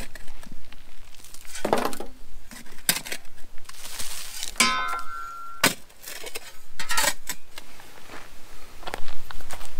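Steel spade chopping and scraping into dry, stony soil: several separate strikes with metallic clinks as the blade hits stones, one near the middle ringing briefly.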